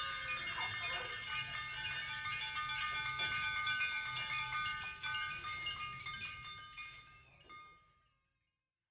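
Dense shimmering of many small ringing chime tones and tinkles, with a few held pitches, dying away about seven to eight seconds in to silence.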